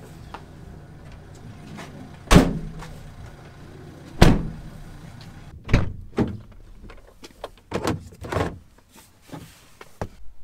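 About seven heavy thumps and knocks at uneven intervals over a faint low rumble. The first two, about two and four seconds in, are the loudest, and the rest come in a quicker cluster later on.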